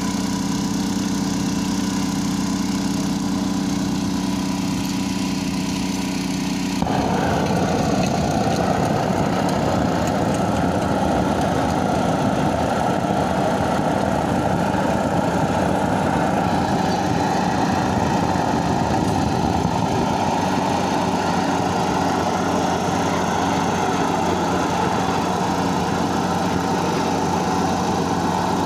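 An engine running steadily. About seven seconds in, a louder, rougher noise suddenly joins it and carries on.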